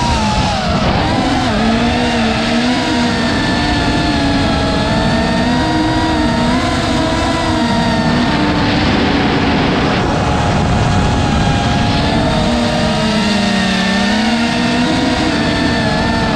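FPV racing quadcopter's brushless motors whining in flight, several pitches at once that rise and fall continuously with the throttle.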